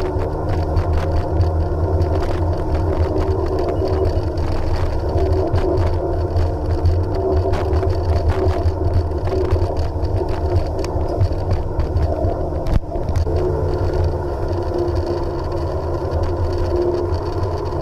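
Jet ski engine running steadily at a constant pitch, with a continual crackle of water and wind noise over it and one sharp click about 13 seconds in.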